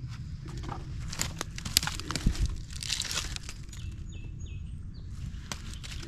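Irregular crunching, crackling and crinkling of dry debris and plastic litter being picked through by hand and underfoot.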